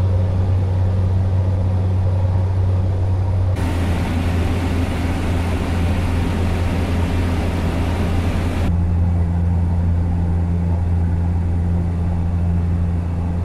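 Steady low drone of a single-engine propeller plane's engine and propeller in cruise, heard inside the cabin. From about three and a half seconds to near nine seconds a louder hiss rides over the drone, then drops away again.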